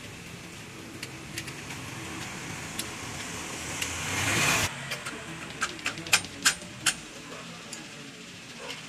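Small metal parts clicking, about six sharp clicks in quick succession over a second and a half, as nuts and washers are handled while a coil-spring rear shock absorber is fitted onto its mounting stud. Before that, a steady background hum swells and cuts off abruptly.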